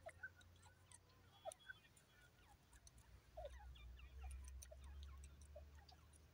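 Faint, scattered bird chirps and soft ticks, irregular rather than a repeated call, over a low background rumble that swells and fades.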